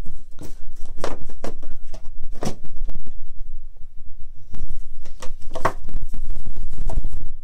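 Plastic Blu-ray cases being handled and slid along a wooden shelf: a string of clicks, clacks and scrapes over a steady low rumble of the phone being handled.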